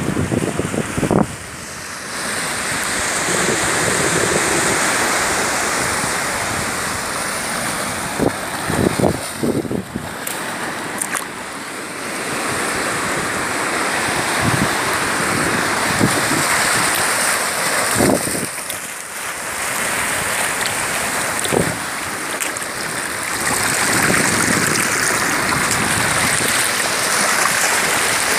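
Sea surf washing over a rocky shore, swelling and easing every few seconds, with wind on the microphone. A few short thumps come through, the loudest a cluster about eight to ten seconds in.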